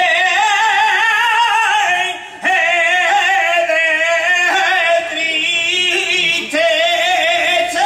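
A man singing flamenco cante in long, wavering, ornamented phrases, with short breaks between phrases about two and a half, four and a half and six and a half seconds in.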